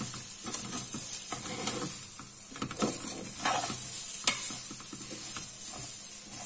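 Metal spoon stirring and scraping rice and vegetables as they fry in ghee in an aluminium pressure cooker, with a steady sizzle under irregular scrapes and one sharp clink a little past four seconds in.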